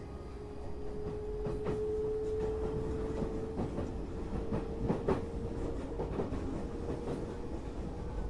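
Odakyu 8000 series train running on motor car DeHa 8116, with the whine of its IGBT-VVVF traction equipment held at one steady pitch that creeps slightly upward. Over a low rumble, the wheels click sharply over rail joints several times in the middle.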